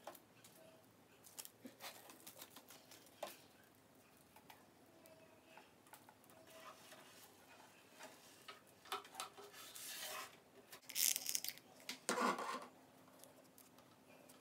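Faint handling noises as an LED strip is fitted along a desk edge: scattered light clicks and rustles, then a few short, louder rustling bursts in the second half.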